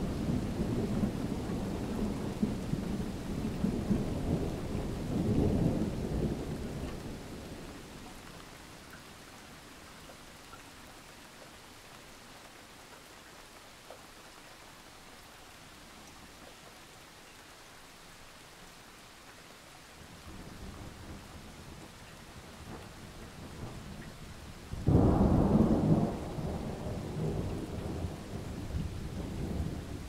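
Thunderstorm: thunder rumbling over steady rain. The rumble dies away over the first seven seconds or so, leaving the rain on its own, then thunder builds again and a loud clap comes about 25 seconds in, rolling on afterwards.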